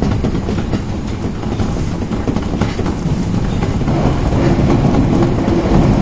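Osaka Municipal Subway 22 series train running between stations: a steady low rumble with wheels clicking over rail joints. A faint steady tone joins about four seconds in.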